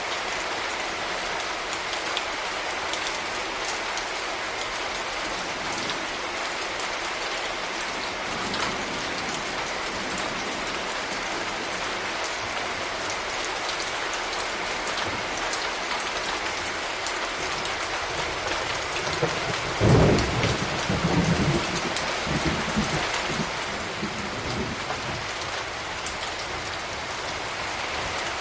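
Steady, heavy rain falling on hard urban surfaces, with a low thunder rumble breaking in about twenty seconds in and rolling on for several seconds before it fades back to the rain.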